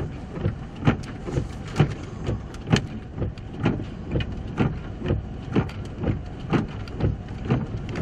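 A vehicle's turn-signal or hazard flasher clicking at an even beat: a louder click about once a second and a softer one between. Under it is the low hum of the engine idling.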